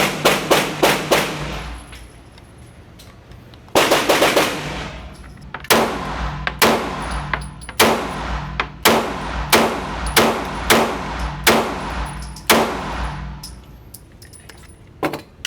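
Gunfire on a shooting range: a quick string of about six shots, then a short rapid burst about four seconds in, followed by a steady series of single shots roughly one every 0.7 seconds.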